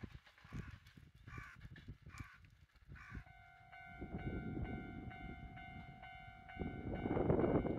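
Crows caw three times. Then a railway level-crossing alarm starts ringing in a steady, even repeat. Near the end a broad rush of noise swells up under the alarm.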